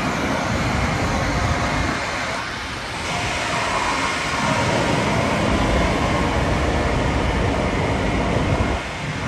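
Siemens ACS-64 electric locomotive close by, giving a steady mechanical whir with a few faint steady tones in it. The whir dips briefly about two to three seconds in.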